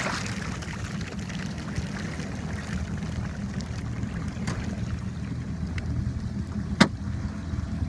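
Jet ski engine idling steadily with a low hum. A single sharp click about seven seconds in.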